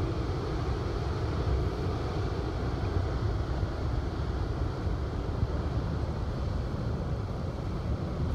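Steady low rumble and rush of water pouring out of a dam's outflow into the river channel.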